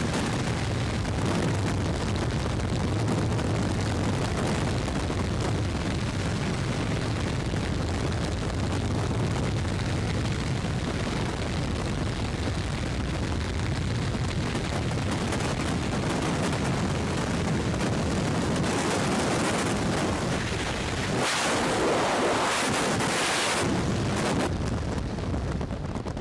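Heavy wind rushing and buffeting over the microphone during a skydive, steady and loud. About 21 seconds in, the low rumble drops away and a brighter hiss takes over for a few seconds.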